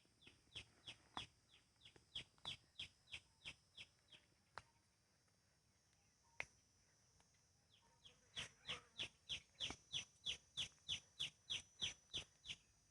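A bird calling faintly: a run of short notes, each falling quickly in pitch, about three a second, then after a pause of some four seconds a second, louder run of the same notes.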